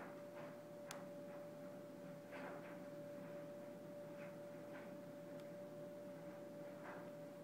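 A faint, steady high-pitched hum on one pitch, with soft irregular ticks scattered through it.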